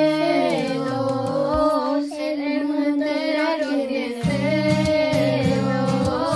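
Children singing a song together over a guitar accompaniment. The low accompaniment drops out for about two seconds midway, leaving the voices alone, then comes back in.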